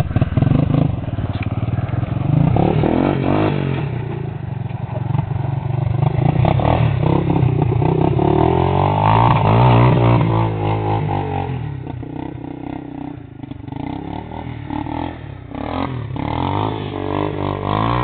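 Yamaha Moto-4 225 ATV's single-cylinder four-stroke engine revving up and down under load as it climbs gravel mounds. It is loudest about halfway through, eases off briefly a few seconds later, then picks up again.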